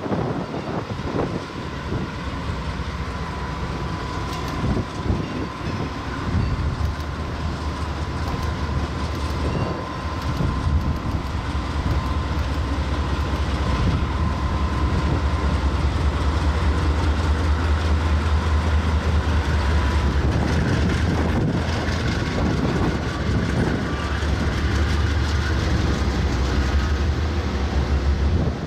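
Norfolk Southern diesel freight train departing: the locomotives rumble deeply and grow louder from about halfway through, with railcar wheels knocking along the rails. A thin steady whine runs through the first two-thirds.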